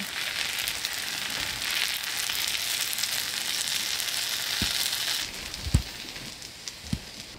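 Food sizzling in hot oil in a pan for about five seconds, then stopping abruptly, followed by three short low knocks, the middle one the loudest.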